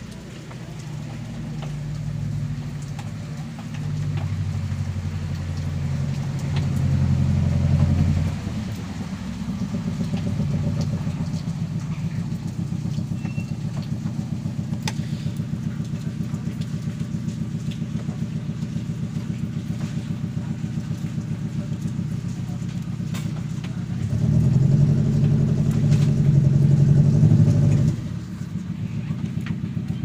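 An idling engine runs with a steady low throb and swells louder twice, once in the first part and again near the end.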